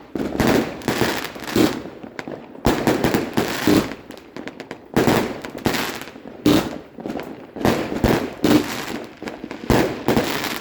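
Fireworks going off in quick succession: loud bangs, roughly one to two a second, with short runs of rapid small pops in between.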